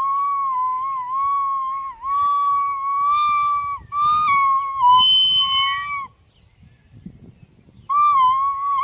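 A flute playing long, slightly wavering high notes in a slow line, broken by short breaks. A second, higher tone joins briefly about five seconds in. After a pause of about two seconds, the notes resume near the end.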